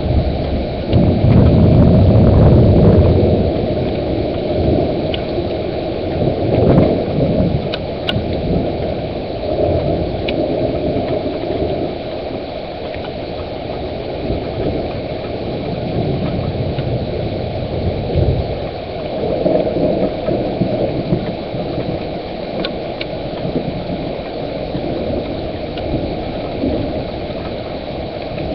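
Thunderstorm heard through a webcam microphone: a steady low rushing of wind and rain, with a louder low rumble about one to three seconds in.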